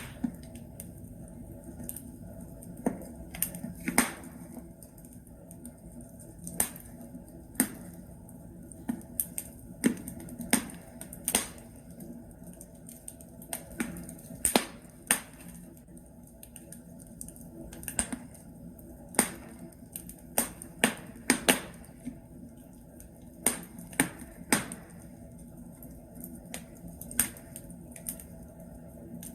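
Wood logs burning in a fireplace, crackling with irregular sharp pops, about one a second and sometimes several in quick succession, over a steady low hiss of the fire.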